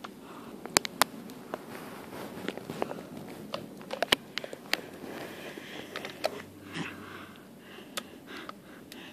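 Handling noise: cloth rustling, with scattered sharp clicks and taps, a few of them louder, about a second in and around four seconds in.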